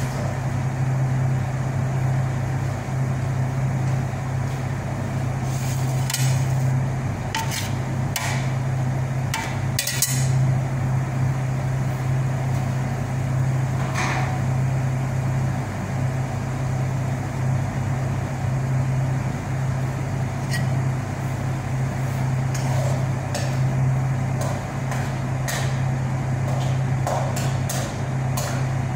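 Scattered clinks and knocks of kitchen pots, pans and utensils over a steady low hum.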